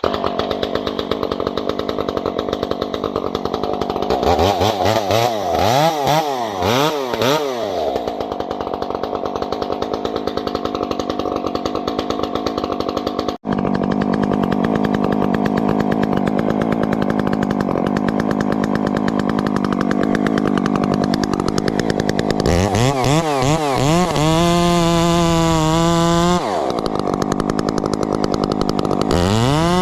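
Husqvarna 350 two-stroke chainsaw running, with a 24-inch bar and skip-tooth chain. It is revved up and down repeatedly, and held at high revs for a couple of seconds toward the end. It has a momentary break about thirteen seconds in.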